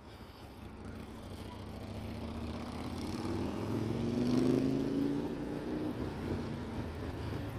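A motor vehicle's engine passing on the street, its pitch rising slightly as it speeds up and loudest about halfway through, over a steady low traffic rumble.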